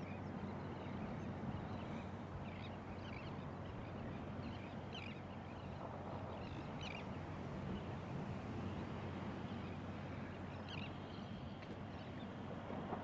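Faint outdoor beach ambience: a steady low rush of noise with short, distant bird calls now and then.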